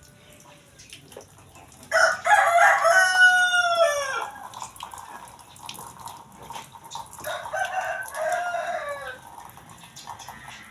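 Rooster crowing twice: a loud crow about two seconds in and a softer one about seven seconds in, each drawn out and falling in pitch at the end.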